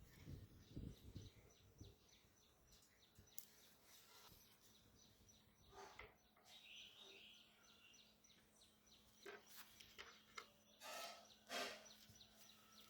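Near silence: faint background ambience with scattered soft clicks and a few faint chirps, and a faint steady low hum coming in about halfway through.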